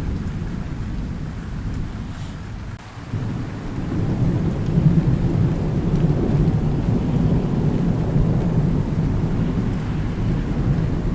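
Thunder rumbling over steady rain. The rumble eases briefly, then a new, louder roll of thunder builds about three seconds in and carries on.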